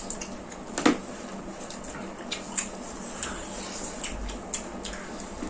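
Close-up eating sounds: wet chewing and lip smacks over a meal of rice and curry, with scattered short clicks, the sharpest about a second in.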